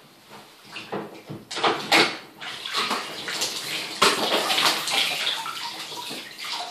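Water splashing in a bathtub as a soaked airsoft shotgun magazine is pulled out, then water streaming off it back into the tub, with a sharp knock about four seconds in.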